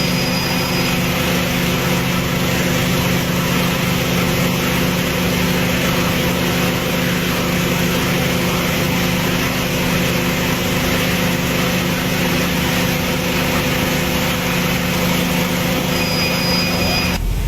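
A motor or engine running steadily: a constant hum holding a few fixed tones over an even rushing noise.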